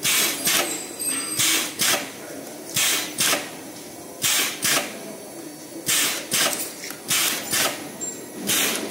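Table spot welding machine's hand-held gun making spot welds on sheet steel one after another. Each weld gives a pair of short, sharp bursts about half a second apart, repeating roughly every second and a half, about six times.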